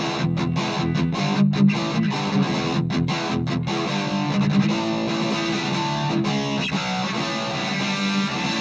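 Gibson SG Standard electric guitar played through a Marshall MG10CF practice amp on its overdrive channel with the gain set at half: distorted chords, chopped by short stops in the first few seconds, then chords and notes left ringing.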